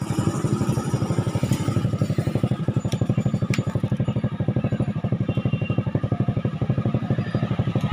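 A small engine running steadily, its firing heard as rapid even pulses, about ten a second, in the manner of a motorcycle idling. A couple of light clicks sound about three seconds in.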